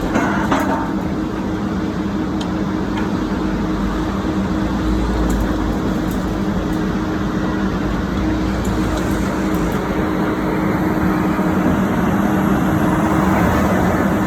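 Heavy diesel engine of a Bauer BG 20 H rotary drilling rig running steadily, a constant low hum that grows slightly louder near the end.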